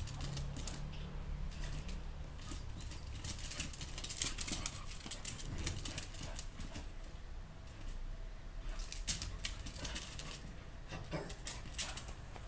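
A puppy's claws clicking irregularly on concrete as it scampers and plays, over a low rumble.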